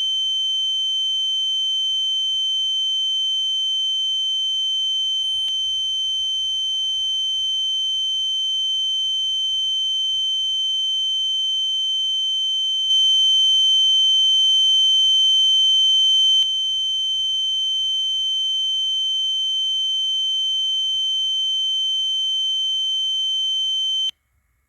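Ear-ringing (tinnitus) sound effect: a steady high-pitched tone, louder for a few seconds past the middle, cutting off suddenly near the end.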